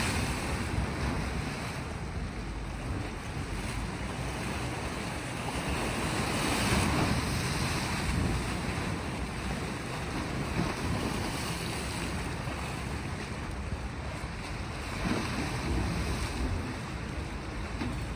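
Small sea waves washing against a rocky shore, with wind buffeting the microphone. The wash swells and ebbs, a little louder about seven seconds in and again around fifteen seconds.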